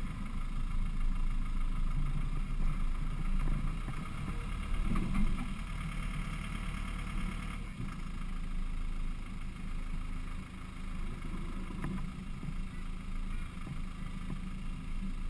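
Land Rover Defender 110 engine running low and steady as the truck crawls down rock steps, heard from a roof-mounted camera, with occasional knocks and thumps as it comes down over the rock. A higher steady hum in the mix cuts off about halfway through.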